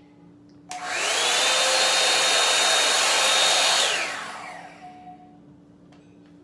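Revlon One Step hair dryer switched on, its motor spinning up with a rising whine under a loud rush of air, running steadily for about three seconds, then switched off and winding down with a falling whine.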